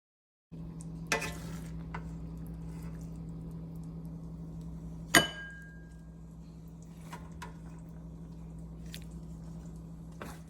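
Kitchenware clinking: a few light knocks and one sharp, ringing clink of metal or glass about five seconds in, over a steady low hum.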